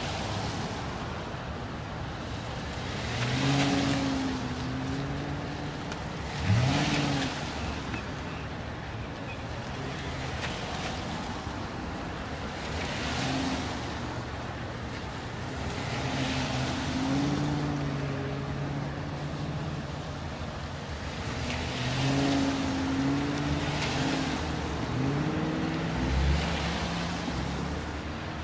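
Cars passing one after another close by on a wet road: tyre hiss on the wet pavement swells and fades as each goes by, with their engines running. A brief rising engine note about six and a half seconds in is the loudest moment.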